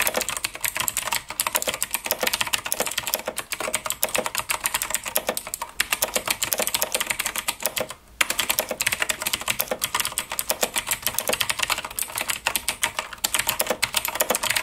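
Fast typing on a Razer BlackWidow X Chroma mechanical keyboard with clicky Razer Green switches: a dense stream of sharp key clicks, with short pauses about six and eight seconds in.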